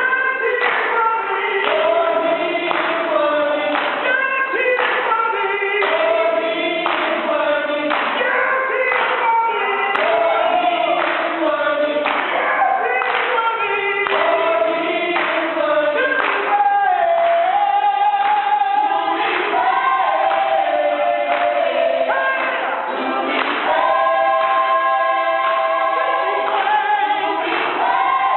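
Church worship group singing together, several voices carrying a continuous melody as music.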